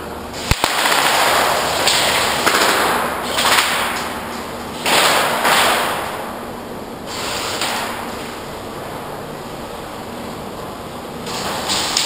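A sharp crack about half a second in, then several bursts of rapid airsoft gunfire, each a second or two long, with a last burst near the end.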